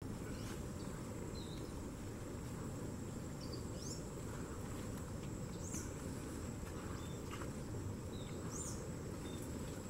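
Outdoor ambience: a steady high-pitched insect drone, with a few short bird chirps scattered through, over low background noise.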